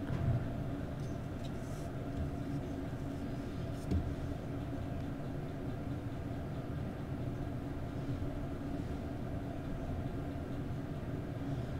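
Steady low mechanical hum in the room, with two small clicks of tweezers and plastic model parts being handled: one at the start and one about four seconds in.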